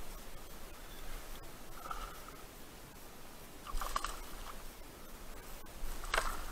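A hooked peacock bass thrashing and splashing at the water surface beside the kayak, with two sharp splashes about four and six seconds in and a smaller one about two seconds in.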